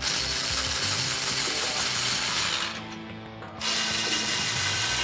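Power tool with a 13 mm socket spinning down the two-bolt exhaust flange bolts at the catalytic converter. It runs in two stretches of about two and a half seconds each, with a pause of about a second between them.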